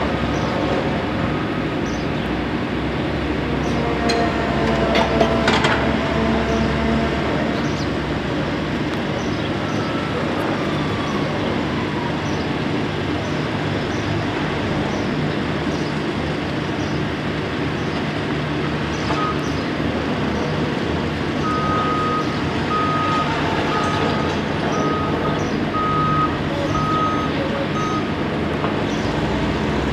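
Heavy machinery running steadily, with a reversing alarm beeping at even intervals near the end.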